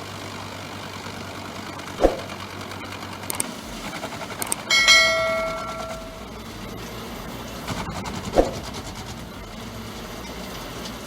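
A machine running steadily, with two sharp knocks about six seconds apart and a short metallic ring near the middle.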